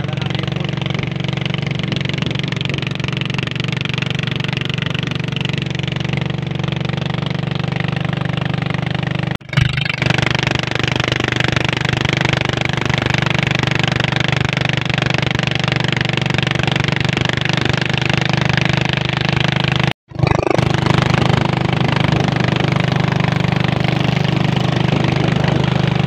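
Small motorboat's engine running at a steady speed, an even drone with a constant pitch. The sound breaks off briefly twice, about a third and three-quarters of the way through.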